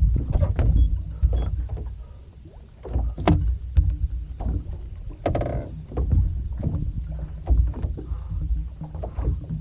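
Small fiberglass boat (a Boston Whaler 150 Montauk) on the water: a steady low rumble with scattered knocks and bumps against the hull and deck, and one brief louder rush about five seconds in.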